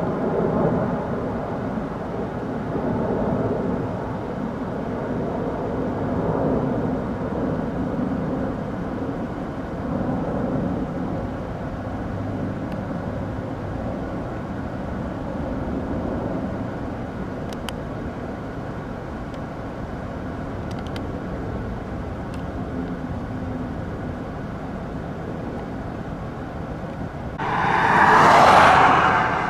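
Distant tandem-rotor helicopter flying, a steady low rumble that swells and fades every few seconds. Near the end a brief, louder rushing sound rises and falls over about two seconds.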